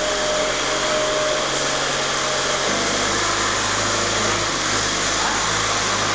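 Linde forklift truck's engine running steadily under a broad hiss as it carries a paper reel in its roll clamp; the engine note changes about two and a half seconds in.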